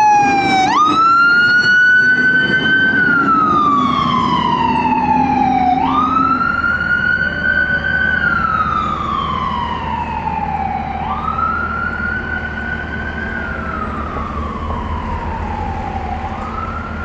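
Siren of a 2015 International/Horton ambulance in a slow wail, jumping up and then gliding down about every five seconds, growing fainter as the ambulance drives away. A low engine rumble is heard under it at first.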